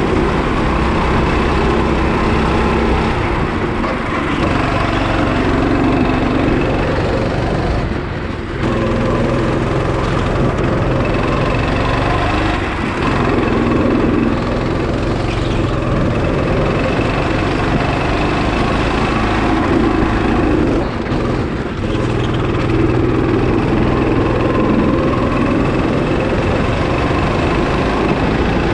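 Go-kart engine running at speed, heard from onboard, its pitch rising and falling through the lap; the sound dips briefly twice, about a third of the way through and again about three quarters through, as the throttle is eased.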